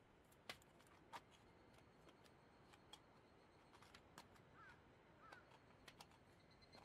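Near silence: faint outdoor ambience with sparse soft clicks and a couple of faint short chirps around the middle.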